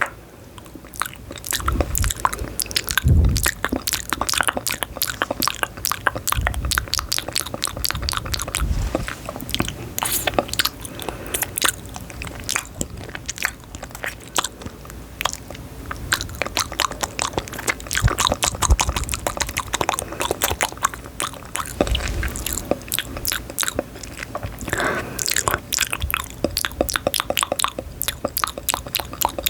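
Close-miked ASMR chewing and biting into something crunchy: a dense stream of crisp crackling clicks with occasional low thuds.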